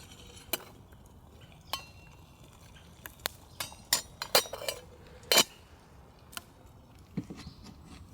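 Metal camp cookware and utensils clinking as they are handled: a few separate clinks, some ringing briefly, then a quicker cluster of louder clinks from about three to five and a half seconds in.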